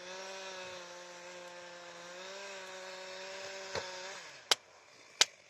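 Distant two-stroke chainsaw running steadily at high revs while felling a pine, then winding down about four seconds in. Two sharp cracks follow.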